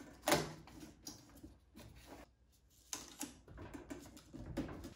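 Hands pressing and smoothing metallic foil ductwork tape onto a sheet-metal vent housing: scattered crinkles and small taps, with a sharp click about a third of a second in and a short quiet stretch in the middle.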